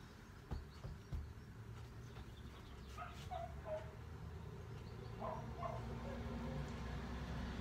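Dog making short, high whines in small clusters. Two knocks about half a second and a second in, as its paws land on the floor.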